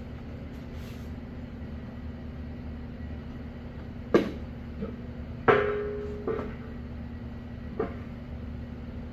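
Sheet-steel pieces knocking and clanking as a fabricated steel collector box is handled and set against a steel tank: four sharp knocks in the second half, the loudest one ringing briefly like struck metal. A steady low hum runs underneath.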